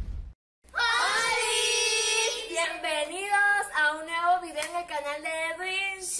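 A girl's voice singing, with long held notes that waver, starting after a moment of silence.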